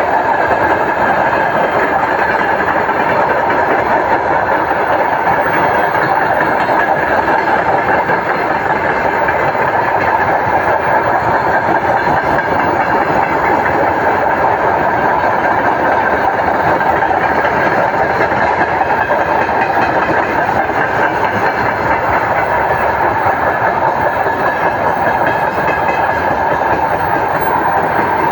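A train hauled by a 2TE116 diesel locomotive rolling past on the rails, a loud, steady run of wheel and rail noise without let-up.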